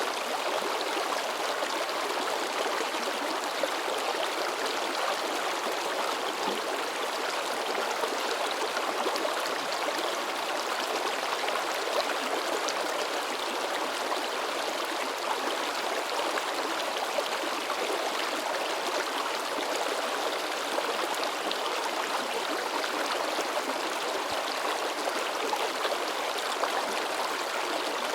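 River water babbling and splashing over rocks, a steady, even rushing with small splashes throughout.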